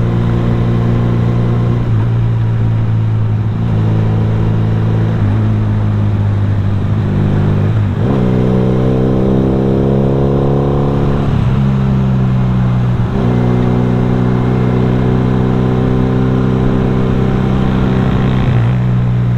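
Small single-cylinder four-stroke motorcycle engine running steadily while riding. Three times its pitch dips briefly and settles at a new level.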